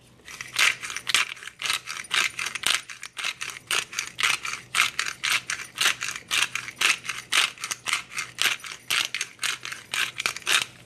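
Hand pepper mill grinding black pepper, twisted in a steady run of short crunching strokes, about four a second.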